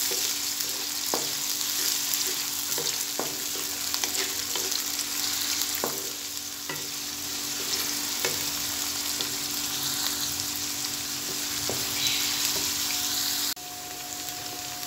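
Chopped onions sizzling in hot oil in an aluminium kadai, stirred with a wooden spatula that knocks and scrapes against the pan now and then. Near the end the sizzle suddenly drops quieter.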